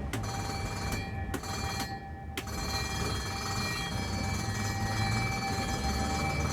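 Ambulance engine running steadily, with a high steady electronic tone over it. A few sharp clicks come in the first couple of seconds, and the high tone cuts out briefly twice.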